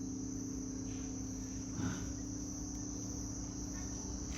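Crickets chirping steadily in a continuous high-pitched trill, with a faint low steady hum beneath.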